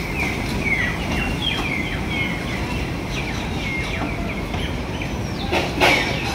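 Birds chirping, a run of short falling notes repeated several times a second, over a steady low rumble. A brief loud burst of noise comes near the end.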